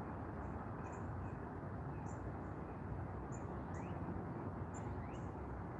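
Birds chirping: short high chirps every half second or so, with two brief rising whistles in the second half, over a steady low background noise.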